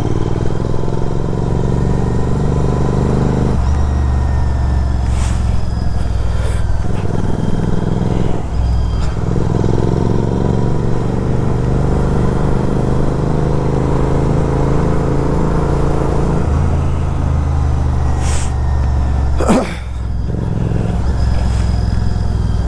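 Motorcycle with an aftermarket Atom exhaust accelerating on the road: the exhaust note climbs in pitch, then drops at each of three gear changes, about 3.5, 8.5 and 16.5 seconds in. Near the end there is a brief, sharp rise and fall in pitch.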